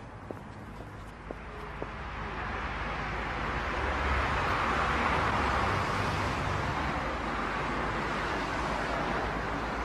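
Road traffic noise: a vehicle passing, its rushing sound building up over a couple of seconds and staying loud, with a few light ticks about twice a second at the start.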